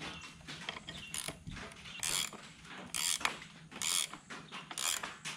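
Ratcheting wrench tightening a dirt bike's front axle nut: five short clicking bursts about a second apart, one for each swing of the wrench.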